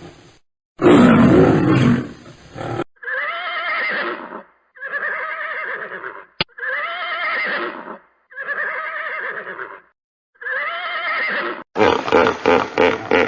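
A lion roaring once about a second in, then a horse neighing five times, each whinny about a second long with a wavering pitch and all nearly alike. Near the end a different, rapidly pulsing animal sound starts.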